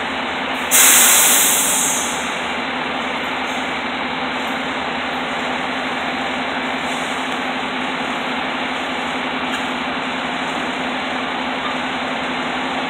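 Fire truck's diesel engine idling steadily, with a loud hiss of released air about a second in that fades out over a second or so.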